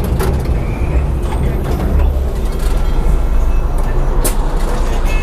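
Cabin noise of a city bus on the move: a steady low engine and road rumble with a few short rattles and knocks.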